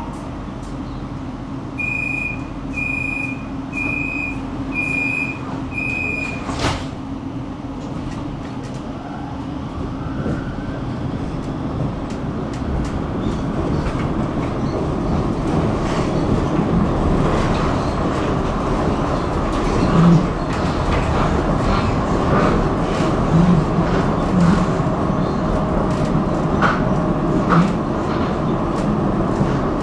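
Tram's warning signal beeps five times, about once a second, then a sharp knock; the tram then gets moving, its running noise growing louder, with knocks from the rails.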